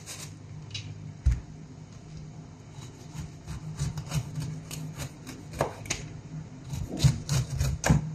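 Kitchen knife cutting the rind off a pineapple on a cutting board: irregular crunchy cuts and knocks of the blade and fruit against the board, with a heavy thump about a second in and a quicker run of strokes near the end.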